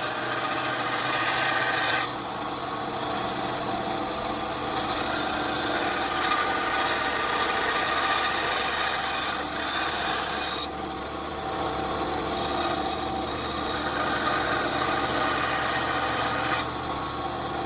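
Einhell 200W hobbyist bandsaw running with its blade cutting through wood. The cutting noise shifts in level several times as the workpiece is fed, loudest through the middle and easing off about two thirds of the way in.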